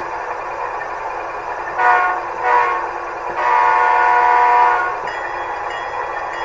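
Model diesel locomotive sound decoder (Soundtraxx Tsunami) playing a GE Dash 9 diesel engine running steadily through a small onboard speaker, with the horn sounded in two short blasts and then one longer blast.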